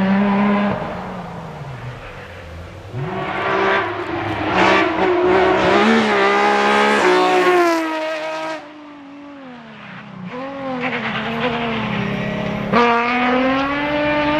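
Rally car engine pulling hard at full throttle on a tarmac stage, its pitch climbing in steps as it shifts up through the gears. About eight and a half seconds in the driver lifts off, the revs dip and rise a few times, then it accelerates hard again near the end.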